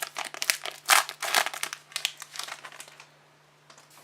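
A trading card pack wrapper crinkling as it is torn open and handled, dense crackling for about three seconds before it stops, leaving a few faint ticks.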